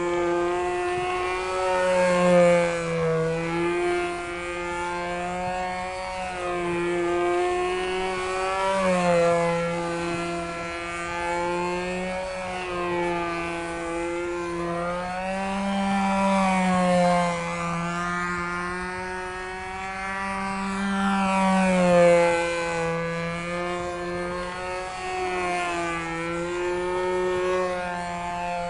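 Small two-stroke glow engine of a Sig Magnum control-line stunt plane running steadily in flight. Its pitch and loudness rise and fall every few seconds as the plane circles and flies its pattern manoeuvres.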